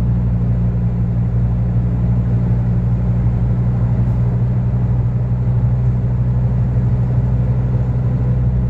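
A vehicle engine running steadily: an even, unchanging low hum.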